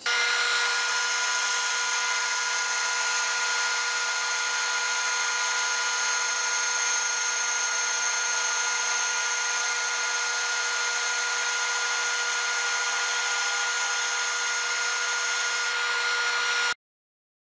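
Band saw running steadily while slicing a block of black Delrin (acetal) plastic, with a constant whine over the cutting noise. It stops abruptly near the end.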